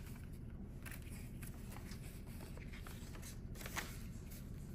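Paper banknotes rustling as bills in a cash tray are flipped through, and the clear plastic pages of a budget binder being turned, in scattered soft crinkles with a louder one near the end.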